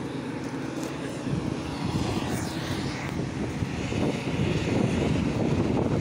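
Heavy farm machinery used for silage harvesting, its engine running steadily as a dense low rumble that grows louder from about a second in as it draws nearer.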